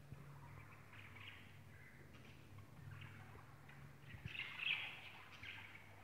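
Budgerigars chattering softly in short bursts of warbles and chirps, with a louder flurry about four and a half seconds in, over a low steady hum.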